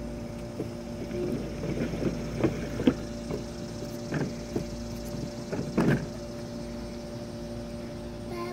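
Plastic ride-on toy train car rolling and clunking along a plastic roller-coaster track as it is pushed up onto the platform, then scattered knocks of hands and knees on the hollow plastic track, loudest about a third of the way in and again past the middle. A steady hum runs underneath.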